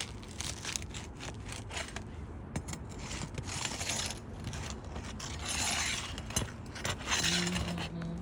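Crowbar prying under roof shingles: irregular metal scraping and clicking as the shingles are loosened.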